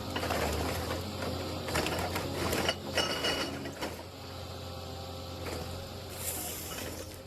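Heavy machinery working: mechanical clattering, clicking and grinding over a steady low engine hum, busiest in the first three seconds and calmer after.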